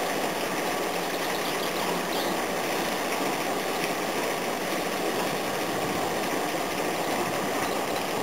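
Crane's engine running steadily as it holds a narrowboat up in its lifting slings.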